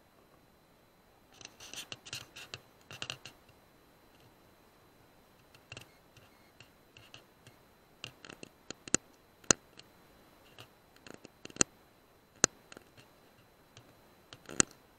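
Handling noise close to a rifle-scope camera's microphone: scratchy rustles about a second and a half in, then a string of sharp, irregular clicks, the loudest near the end.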